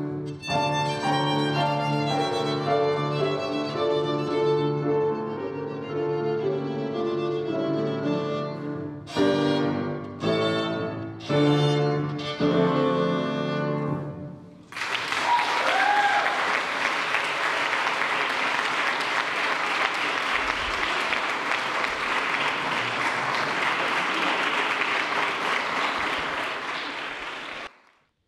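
A violin with piano accompaniment plays the closing bars of a piece, ending on a few loud, separated chords. An audience then applauds steadily for about thirteen seconds until the sound cuts off suddenly.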